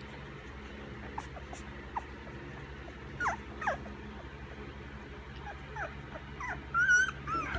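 Week-old chocolate Labrador puppies whimpering while they nurse: short, high squeaks that fall in pitch, scattered through, with a longer, louder squeal near the end.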